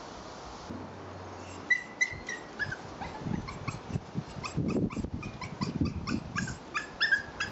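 Young puppy whimpering in a string of short, high-pitched yips and whines, starting about two seconds in, with some low rustling.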